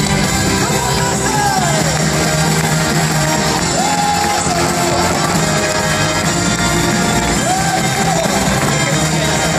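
Loud show music playing over an arena's sound system, with a singing voice gliding up and down over it a few times.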